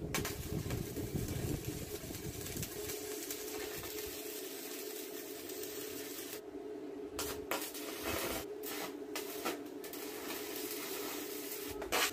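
Stick (arc) welder crackling and hissing as it lays a weld joining steel rebar, over a steady hum. In the second half the arc breaks off briefly several times, and there is a sharp loud crack near the end.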